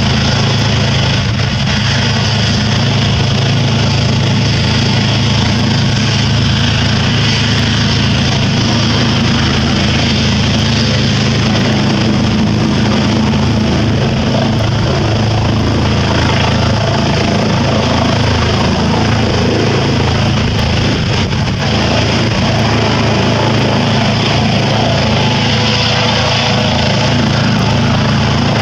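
Eurocopter EC135 police helicopter with its turbines and rotors running steadily, the main rotor giving a fast, even beat; it lifts off near the end.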